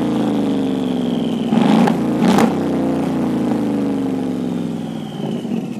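Mercedes-Benz G-Class petrol V8 through its stock, unmodified exhaust, revs slowly falling after a light blip of the throttle. A short sharper rise comes about two seconds in, then the engine note sinks and fades toward idle.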